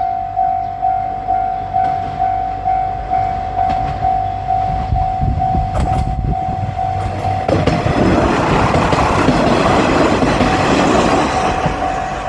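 Japanese railroad crossing bell ringing its electronic 'kan-kan' tone about twice a second. About halfway through, a diesel railcar train passes over the crossing, and its loud rushing and wheel noise for a few seconds largely covers the bell, which comes through again near the end.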